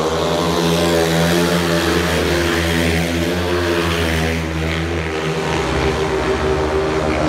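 Speedway motorcycles racing, their 500cc single-cylinder methanol engines running hard in a loud, continuous drone, the pitch wavering as the riders slide through the bends.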